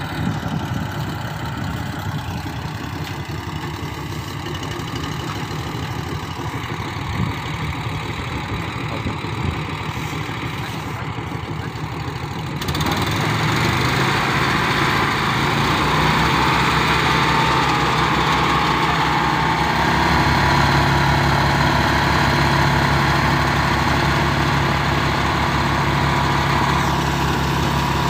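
Small engine of a portable rice threshing machine running steadily. About twelve seconds in it becomes louder and fuller, the threshing drum running up to speed as rice bundles are fed in.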